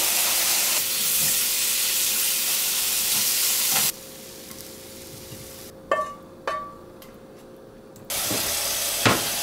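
Liver, onions and tomatoes sizzling in hot oil in a frying pan, a loud steady hiss that cuts off abruptly about four seconds in. In the quieter stretch that follows, two short ringing clinks sound as the food is scraped from the pan onto a plate with a wooden spatula, and the sizzling comes back near the end.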